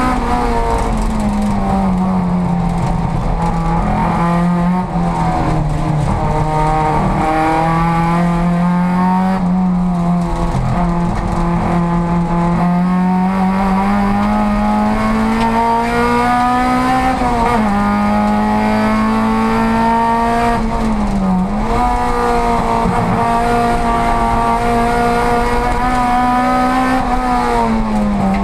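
VW Golf race car's engine at racing speed, heard from inside the stripped cabin, its revs climbing slowly and then dropping back sharply a few times as the driver shifts or lifts.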